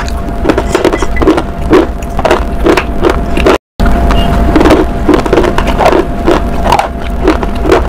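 Close-miked chewing of a crunchy food, about two to three crunches a second, over a steady low hum. The sound cuts out briefly about four seconds in.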